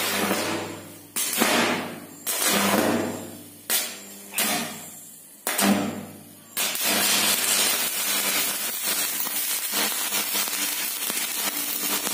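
Electric arc welding with a welding rod held in pliers, powered straight from the mains through a salt-water tank that limits the current. Over the first six seconds there are several short arc strikes, each starting suddenly and dying away. From about six and a half seconds a steady crackling, sputtering arc holds, over a low mains hum.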